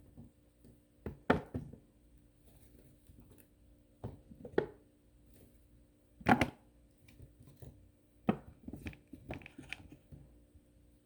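Potatoes being set down one after another onto a kitchen scale: several separate knocks at irregular intervals, the loudest about six seconds in.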